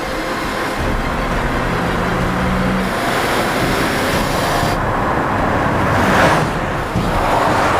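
Cars driving hard at speed in a chase: engines running and heavy road noise, swelling louder about six seconds in and again near the end.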